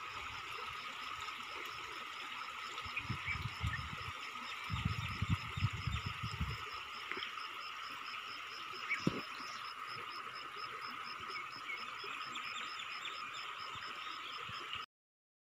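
A steady chorus of frogs calling, with a fast, even, high pulsing running through it. Low rumbles come in about three seconds in and again around five to six seconds. The sound cuts off shortly before the end.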